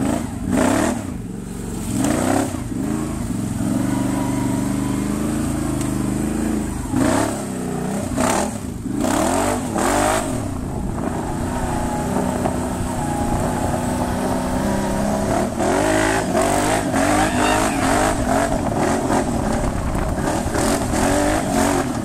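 Can-Am Outlander 800R ATV's Rotax V-twin engine, breathing through an HMF slip-on exhaust, being ridden hard: the engine note rises and falls again and again with the throttle, with several sharp surges in the first half.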